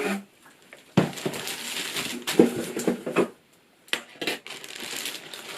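Cardboard box and plastic air-cushion packing being handled and set down: rustling and crinkling, broken by several sharp knocks.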